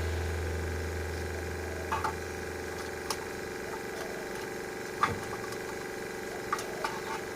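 Several light clicks and knocks, about six spread unevenly, from brake parts and tools being handled during a rear brake pad change, over a steady hum. A low rumble fades out about two seconds in.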